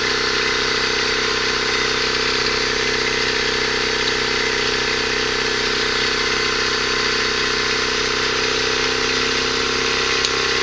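PWM controller switching its load at about 2 kHz: a steady high-pitched whine over a constant hum, holding the same pitch.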